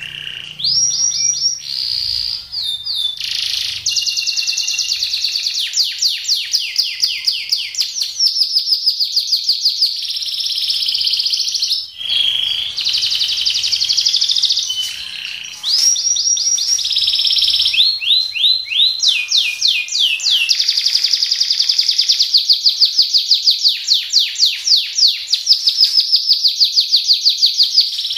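Domestic canary singing a long, nearly unbroken song in the 'roll tembak' style. Fast trills of rapidly repeated notes alternate with quick runs of downward-sweeping notes, with only a brief break about twelve seconds in.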